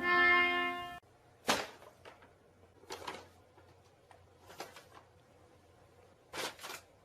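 A held tone cuts off about a second in. Then come four soft knocks, about a second and a half apart, in a quiet room.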